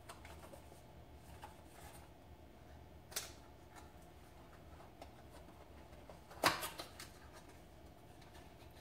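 Small packaging being handled and opened by hand: faint rustling and ticking, with a sharp crinkle about three seconds in and a louder one about six and a half seconds in.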